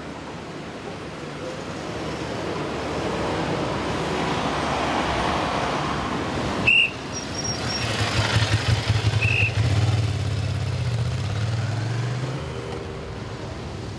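Road-vehicle noise: a rush of traffic-like sound swells up, a sharp hit comes about seven seconds in, then a low throbbing engine rumble that fades near the end.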